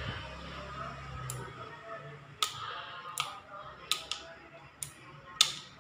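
About six sharp clicks and taps from an Enka Slim (LY-S1004) angle grinder's plastic body being handled, its motor not running.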